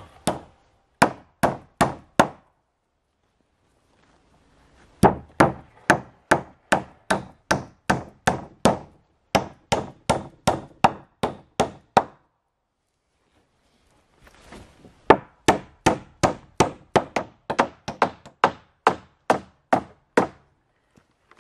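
Hammer nailing overlapping wooden cladding planks to a shed wall: sharp, steady blows about two a second, in three runs with short breaks between them.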